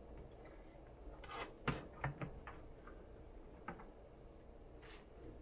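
Faint scattered clicks and taps of a printed circuit board and its plastic terminal connectors being handled: the connectors pushed into the board and the board turned over on the desk.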